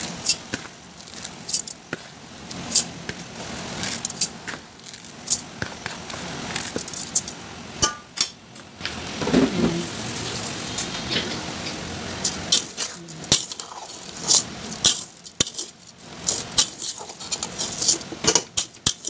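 A cooking utensil scraping and knocking against a metal pot while sticky rice is stirred into chicken, giving irregular sharp clinks and scrapes.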